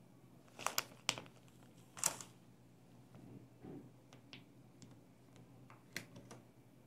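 Faint, scattered small clicks and crinkles from a plastic piping bag being squeezed in gloved hands, several in the first two seconds and one more about six seconds in.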